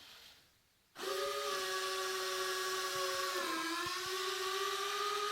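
The RC P-40 model's retractable landing gear mechanism lowering the gear. A steady, small-motor whine starts about a second in, sags in pitch briefly partway through as the load changes, then steadies again.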